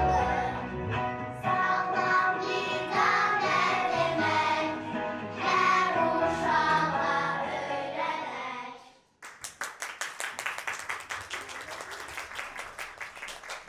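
A group of children singing with recorded backing music; about nine seconds in, the song stops and an audience breaks into steady applause.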